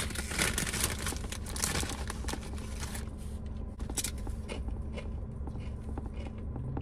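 Foil snack bag of Doritos crinkling as it is opened and shaken for the first few seconds, then sparser crisp crunches as a tortilla chip is bitten and chewed.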